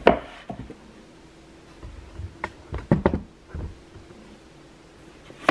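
Books being handled on a wooden bookshelf: a hardback pushed back into the row, with a handful of separate soft knocks and thumps.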